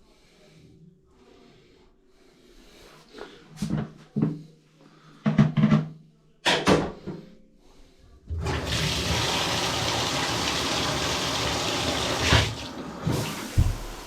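A few short clunks, then water rushes steadily and loudly for about four seconds before it stops.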